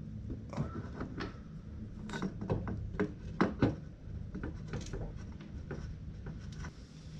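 Scattered clunks and taps of a motorcycle swingarm and its pivot spacers knocking against the frame as it is worked into place, with two louder knocks about three and a half seconds in.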